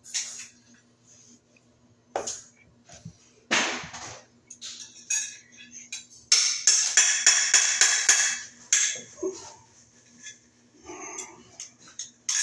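Sheet-metal thermostat cover of an electric baseboard heater being handled and pressed into place: a few sharp metallic clicks and knocks, then a couple of seconds of rapid rattling and clattering of metal about six seconds in, the loudest part. A faint steady hum sits underneath.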